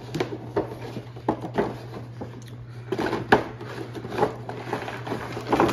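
Cardboard toy box with a clear plastic window being handled and opened: irregular scrapes, taps and rustles of cardboard and plastic packaging.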